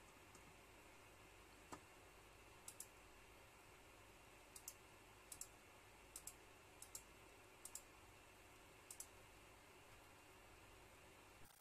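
Faint computer-mouse button clicks. There are about seven quick press-and-release pairs, spaced irregularly, with one single click just before them, over a quiet steady room hum.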